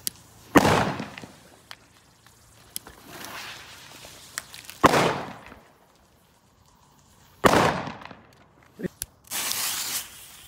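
Firecrackers exploding: three sharp bangs, each trailing off in an echo, about half a second, five seconds and seven and a half seconds in. A short burst of rustling noise follows near the end.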